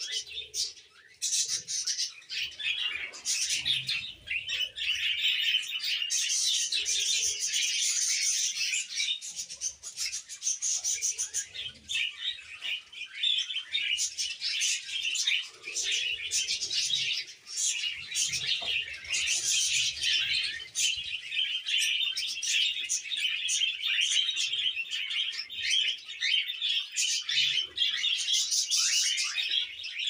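A large flock of pet budgerigars chirping and chattering all at once, a dense, continuous twittering of many birds overlapping.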